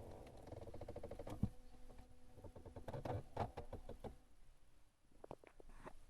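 The strange noise from a Ford Fiesta: a fast run of clicks over a faint steady hum for the first second or so, one sharp knock, then a cluster of irregular knocks and a few scattered clicks near the end.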